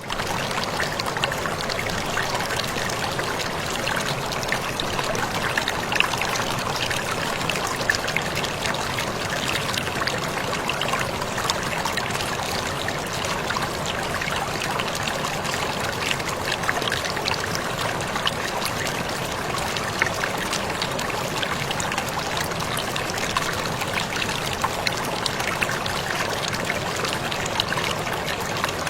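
Waterfall splashing steadily, a constant rush of falling water with small scattered splashes.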